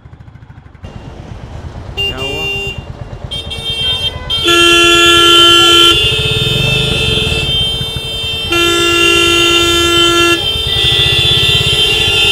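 Several vehicle horns honking at different pitches: short toots from about two seconds in, then long overlapping blasts of one to two seconds each, the loudest sound throughout. Underneath is the low, even pulsing of an idling single-cylinder Royal Enfield Classic 350 engine.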